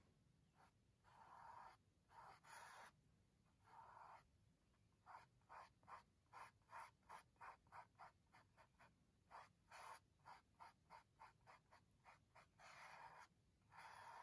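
Paintbrush stroking paint across a stretched canvas: faint swishing, with a few longer strokes, then a run of quick back-and-forth strokes about three a second, then longer strokes again near the end.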